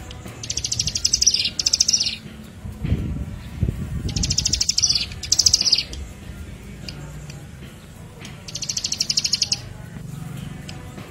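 Prinia song: a fast, buzzy, rattling trill, given three times, each burst about a second and a half long, with a low rumble between the first two.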